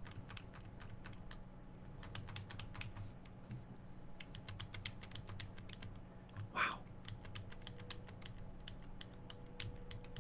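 Faint, irregular clicking of computer keys, many light taps in quick succession over a low steady hum, with one brief louder sound about two-thirds of the way in.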